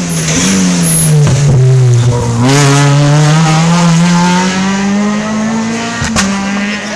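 Rally car engine running hard past the spectators: its pitch falls over the first couple of seconds, then climbs steadily as the car accelerates away, stopping abruptly near the end.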